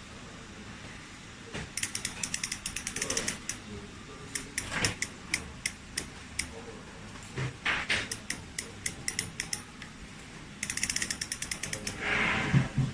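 Novatec D042SB rear hub's freehub pawls clicking in four runs of rapid ratchet clicks, each slowing as the spin dies away. A brief louder rushing sound comes near the end.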